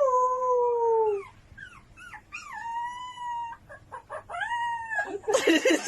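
A dog howling: a long howl that slowly falls in pitch, then short rising yelps leading into two higher, held howls, with a brief harsh noisy sound near the end.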